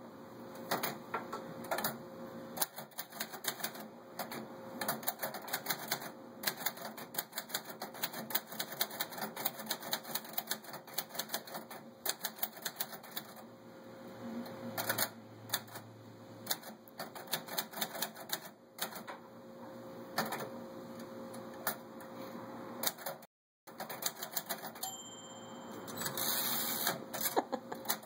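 Manual portable typewriter being typed on: keys and typebars striking the platen in quick, irregular runs of clacks.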